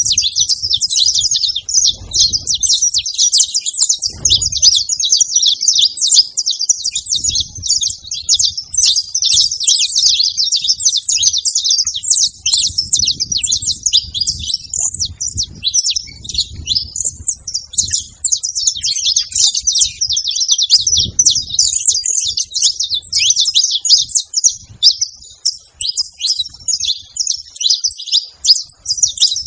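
A flock of saffron finches chirping continuously, many short calls overlapping at once.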